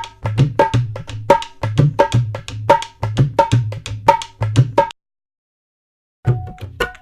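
Short percussion music clip with a steady beat of drum strokes, a little under one and a half strong strokes a second with lighter ones between. It cuts off suddenly about five seconds in, and after a second or so of silence another percussion clip begins.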